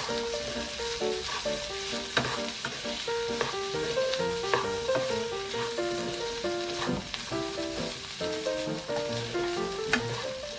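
Oil sizzling in a pan as food fries, with a few sharp clicks, over background music carrying a melody of short notes.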